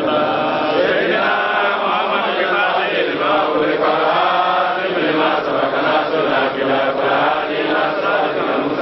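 A crowd of men chanting together in unison, a steady mass of overlapping voices.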